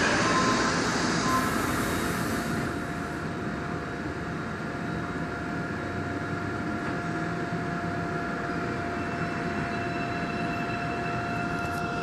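Interior of a Daegu Metro Line 2 subway car standing at a station and then pulling away. A hiss fades out in the first couple of seconds and leaves a steady electrical hum with a constant tone. Higher steady tones from the traction equipment come in near the end as the train starts to move.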